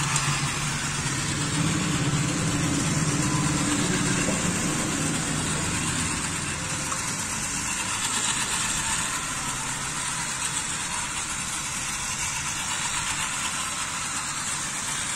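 Battery-powered toy trains running on plastic track: a steady whir from their small electric motors and wheels.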